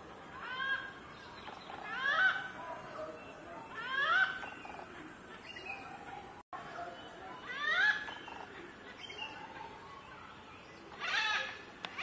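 Malabar grey hornbill giving its cackling call: five short calls, each a quick cluster of notes, repeated every two to four seconds.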